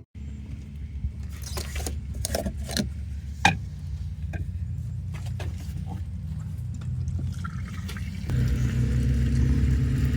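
Massey Ferguson tractor's diesel engine running steadily, with several sharp metallic clinks in the first few seconds; the engine gets louder about eight seconds in.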